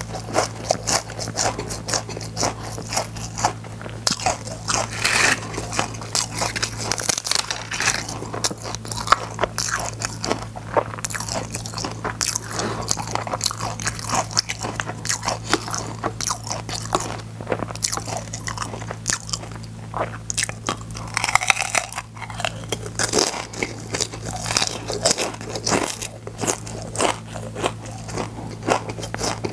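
Close-miked crunching and chewing of crispy fried seaweed chips (gim-bugak), one crisp bite after another, over a steady low hum.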